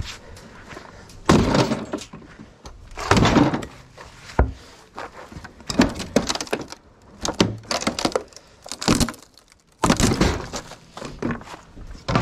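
Irregular heavy crashes and clattering, about one every one to two seconds, of junk and debris being smashed and knocked about.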